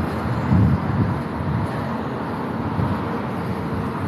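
Street traffic: a steady low rumble of passing vehicles, a little louder about half a second in.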